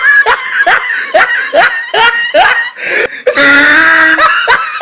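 Comic laughing sound effect: a high-pitched voice giving a quick run of short rising 'hee' laughs, about two or three a second, then a longer held squealing note near the end.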